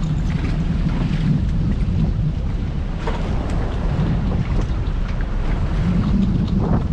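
Wind buffeting the microphone on an open boat deck at sea, over a steady low rumble from the boat and the water.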